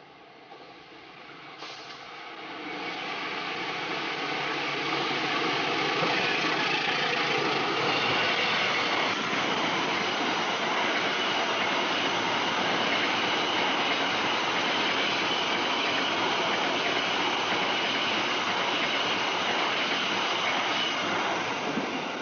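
Diesel-hauled Taksaka passenger train approaching and running past close by: the locomotive's engine grows louder over the first few seconds, then the carriages go by with a steady loud rumble of wheels on rail and a steady high-pitched note over it.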